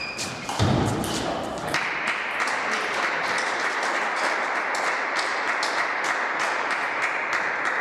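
A table tennis ball struck with a short ping as a rally ends, followed by a loud low thump. Then a steady hiss with sharp taps about three a second.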